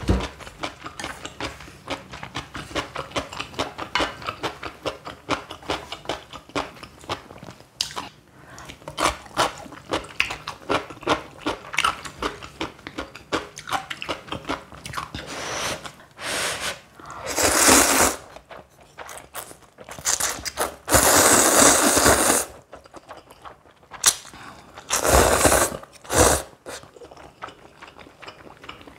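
Close-miked crunching and chewing of stuffed cucumber kimchi, a rapid run of wet crunches. In the second half come three loud slurps, each about a second and a half long, of ramyeon noodles or broth.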